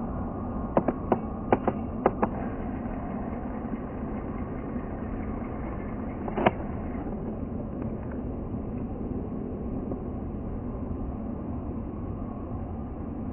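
Airbus A320 jet engines running at taxi power, a steady rumble. A quick run of six sharp clicks comes about a second in, and a single louder click comes about halfway through.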